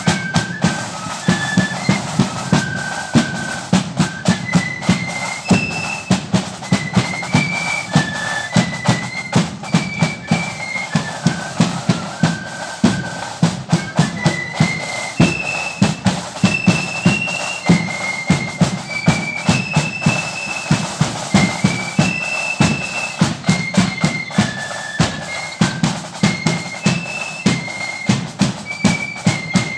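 Marching flute band playing a tune: a high flute melody stepping between notes over a steady, regular beat of snare and bass drum.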